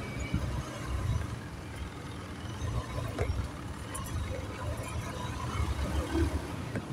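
Motorcycle riding slowly through stopped traffic: an uneven low rumble of engine and road noise that rises and falls.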